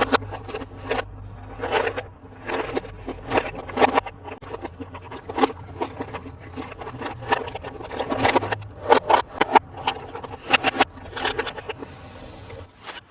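Hands handling a plastic toy truck and its packaging: irregular scrapes, clicks and knocks, over a faint low hum.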